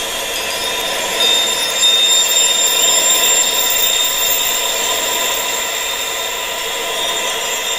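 Steady wind-like rushing with thin, high-pitched steady tones held over it, a tinnitus sound-therapy track; it swells slightly about a second in.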